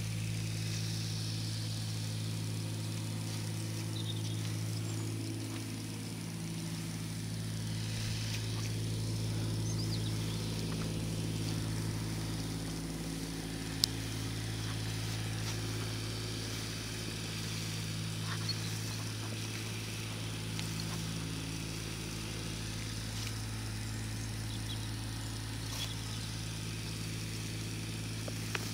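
A steady low engine hum, with one sharp click about halfway through.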